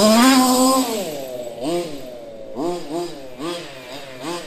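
Losi MTXL RC monster truck's engine, fitted with a silenced Victory exhaust, revving: held high and climbing for about the first second, dropping off, then a quick run of short throttle blips.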